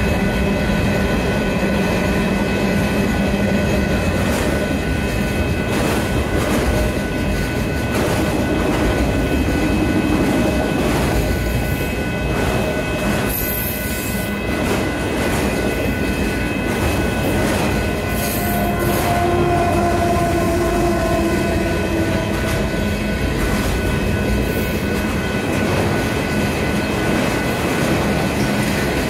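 Freight cars of a long mixed freight train rolling past close by: a steady rumble of wheels on rail with repeated clacking over the joints and crossing, and steady high-pitched tones over it.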